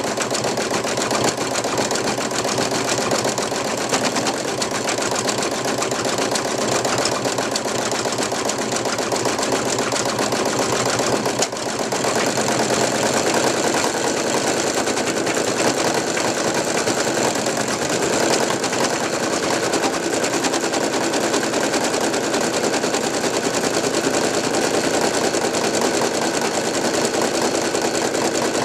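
Brother NV2600 computerized embroidery machine stitching at speed, a fast, steady needle clatter with a brief dip in level about eleven seconds in.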